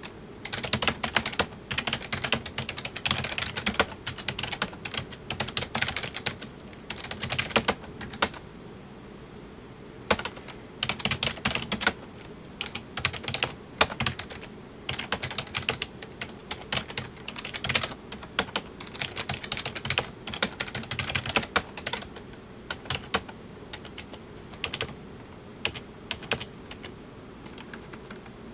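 Typing on a PC keyboard: quick runs of key clicks in bursts, with short pauses between them, over a faint steady low hum.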